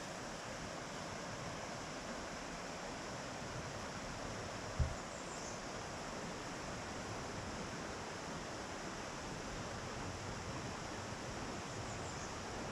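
Steady rushing outdoor noise, with one brief low thump about five seconds in.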